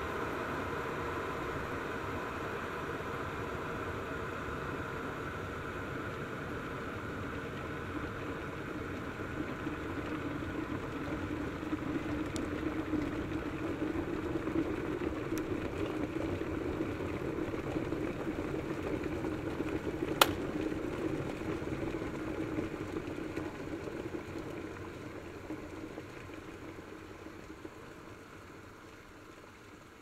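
Kettle boiling: a steady, noisy rush with a low rumble that builds through the middle. One sharp click comes about two-thirds of the way through, and the boiling sound dies away over the last several seconds.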